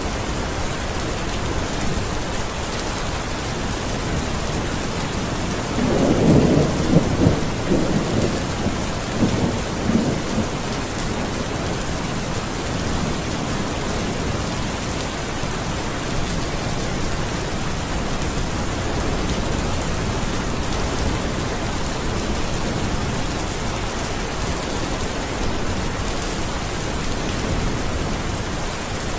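Steady rain falling, with a roll of thunder about six seconds in that swells unevenly for about four seconds before the rain alone carries on.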